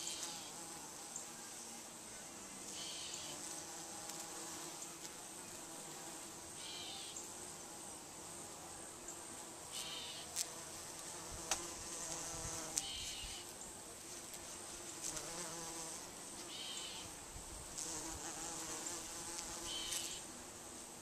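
Many bees buzzing in a blossoming tree, a steady massed hum. A short high chirp repeats about every three to four seconds over it.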